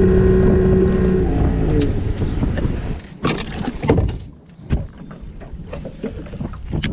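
A boat motor running with a steady hum, dropping in pitch and fading out about a second and a half in; then a few sharp knocks, the loudest around three to four seconds in.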